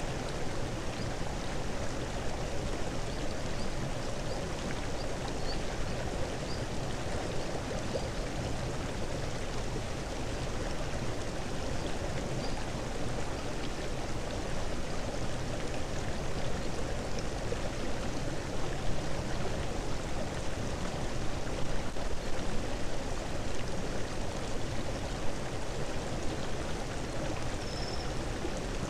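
A steady rushing noise like running water, with a few slightly louder moments in the second half.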